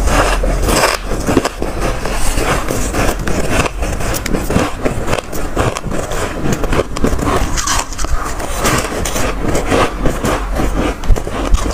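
Mouthfuls of fresh, squeaky freezer frost being bitten and chewed: a dense, unbroken run of crisp crunches and crackles.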